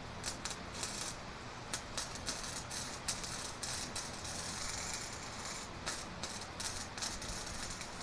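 Wire-feed welder's arc crackling and spitting in irregular pops as a weld is laid, starting a moment in, with a steadier sizzle through the middle.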